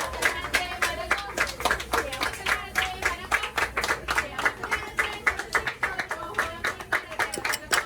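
A rapid, irregular run of sharp clacks, about four to six a second, with voices and music faintly underneath.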